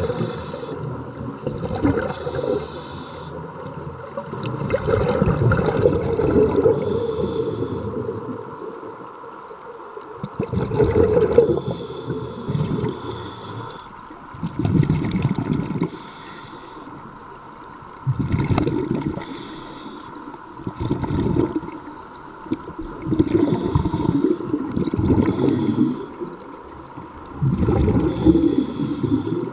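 Scuba diver breathing through a regulator underwater: bursts of exhaled bubbles gurgling every three to four seconds, with a thinner hiss of inhaling between them.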